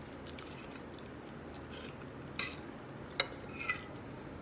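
A person chewing a mouthful of food, with a few light clicks of a metal fork against a ceramic plate, the sharpest about three seconds in.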